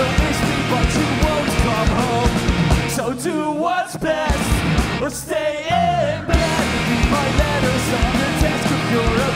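Live pop-punk band playing: distorted electric guitars, bass and drums with sung vocals. About three seconds in the band drops back to a sparse break where the singing stands out. The full band with cymbals comes back in a little after six seconds.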